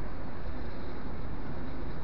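Steady low rumble of city traffic and buses, with no single vehicle standing out.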